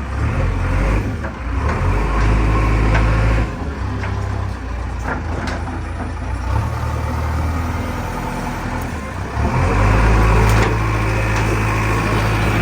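JCB backhoe loader's diesel engine running, rising in level twice as it works under load, with a few short knocks.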